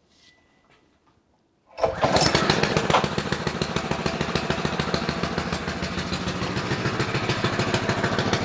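Honda GX160 single-cylinder four-stroke engine starting on choke: after a near-silent pause it catches suddenly about two seconds in and keeps running steadily with a fast even beat. It runs again now that its carburettor has been cleaned of gummed-up stale fuel.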